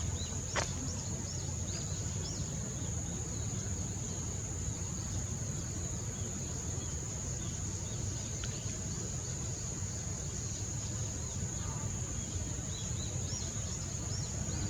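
Outdoor ambience with small birds giving many short high chirps over a steady high-pitched whine and a low background rumble, with one click about half a second in.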